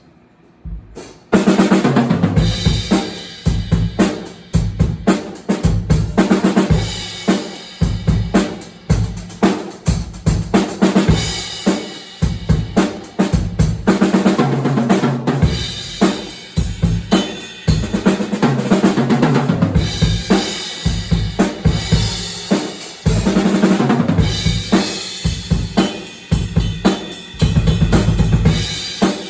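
Drum kit being played, a steady run of beats that starts about a second in and keeps going without a break.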